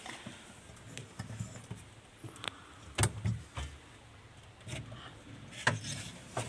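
Scattered clicks and knocks, with a cluster of dull thumps about three seconds in and more near the end: objects being handled and set down.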